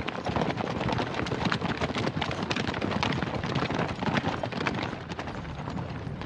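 Hoofbeats of several horses galloping together on a dirt road, a dense, continuous clatter that eases off slightly near the end.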